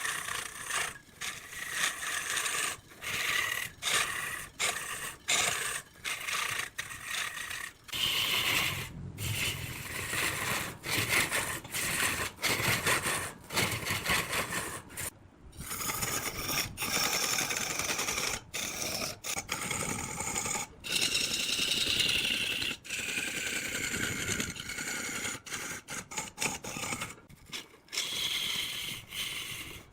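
Woodworking tools scraping and cutting wood, heard as a string of short clips that cut in and out abruptly.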